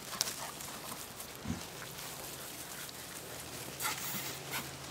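Pointer puppies romping and play-fighting on grass: scattered short scuffs and rustles, with a couple of louder scuffles near the end.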